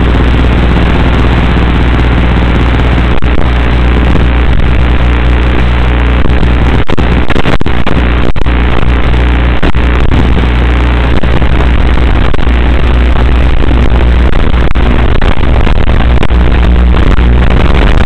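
Loud, steady hiss and low electronic hum from an analog FPV video link's audio channel, cut by brief crackling dropouts several times in the middle.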